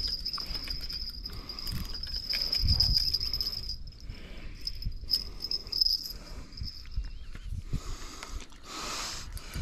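An insect chirring in one steady high tone, breaking off about four seconds in and coming back in short spells until about six seconds, with scattered low knocks and rustles underneath.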